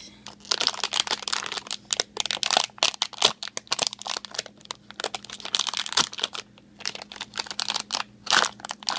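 Packaging crinkling and rustling in quick irregular bursts as a Vinylmation blind-box figure is unwrapped by hand.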